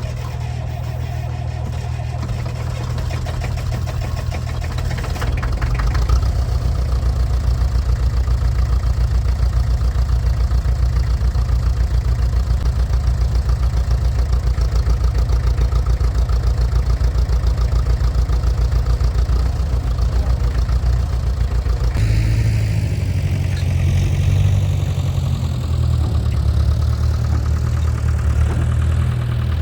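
Diesel engine of an International 3414 backhoe running with an even, rhythmic diesel clatter; the sound changes abruptly about 22 seconds in.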